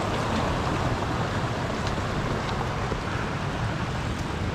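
Floodwater rushing across a muddy mountain-bike trail in a steady, continuous rush.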